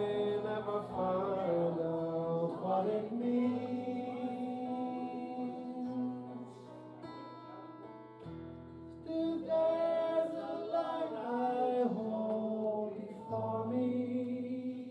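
A man singing a slow ballad live into a microphone, with long held notes, accompanied by acoustic guitar.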